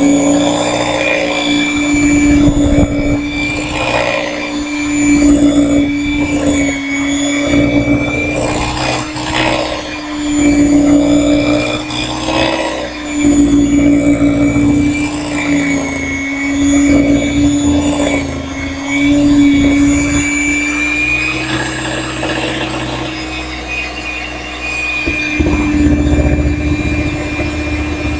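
Electric mixer motor running steadily with a whine, its beaters working cake batter in a bowl; the pitch wavers slightly every couple of seconds. A low rumble joins near the end.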